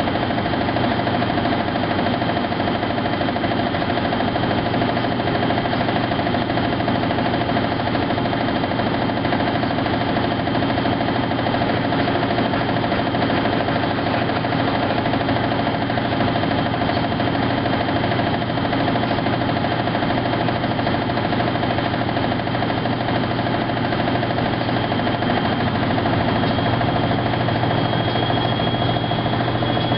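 Maytag SoftMount commercial washer running steadily through its cycle, a constant motor hum with a faint high whine that rises slightly near the end.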